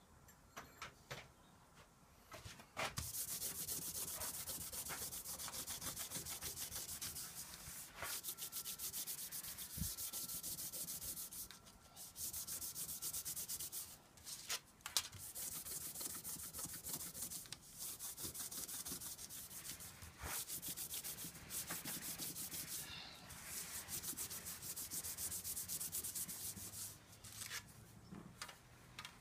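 Thin aluminium panel being scuffed by hand with an abrasive pad, in fast back-and-forth scratching strokes that run in spells with short pauses between. This is surface prep ahead of priming. A few light knocks from handling come in the first seconds before the scrubbing starts.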